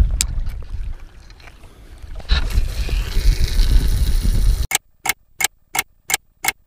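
Low wind rumble on the microphone by open water, then a clock-ticking sound effect: six sharp ticks about three a second, with silence between them.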